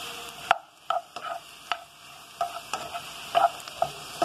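Diced zucchini and egg whites sizzling in olive oil in a nonstick frying pan, a steady hiss broken by a run of sharp clicks and taps.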